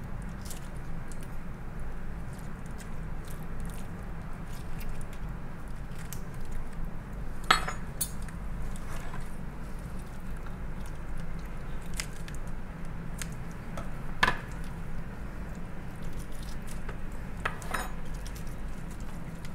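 Kitchen shears and a spoon working a raw lobster's shell on a wooden board: scattered light clicks and scrapes, with two sharper snaps about a third of the way in and again past the middle, over a steady low hum.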